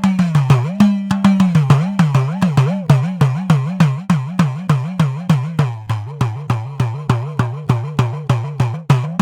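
Idakka, the Kerala hourglass drum, struck in a quick, even stream of strokes at 100 beats a minute. Its pitch bends up and down every few strokes as the player tightens and slackens the lacing.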